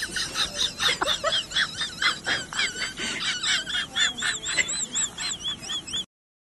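Many small birds peeping and chirping, short high-pitched calls overlapping several times a second; the sound cuts off suddenly near the end.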